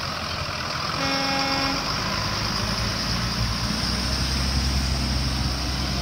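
School bus engines running as the buses pull away on a wet road, over a steady hiss, with one short horn toot about a second in. The low engine rumble grows louder in the second half.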